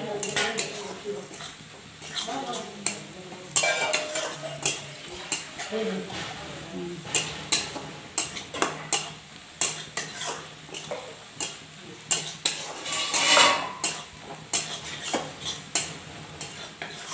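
Long metal spatula scraping and knocking against a metal kadai while stirring frying onions and chilli powder, with the food sizzling faintly underneath. The knocks come about once or twice a second, with one longer scrape about three-quarters of the way through.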